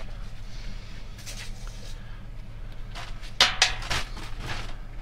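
Rummaging through trash in a dumpster: objects being handled and knocked together, with a few sharp clatters about three and a half seconds in, over a steady low hum.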